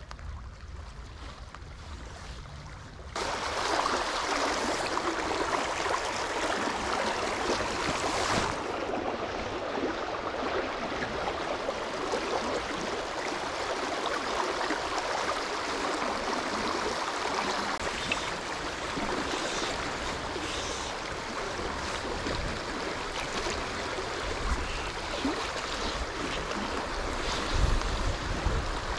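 Fast river current rushing over riffles, a steady hiss that gets much louder about three seconds in. Low rumbles near the end, like wind buffeting the microphone.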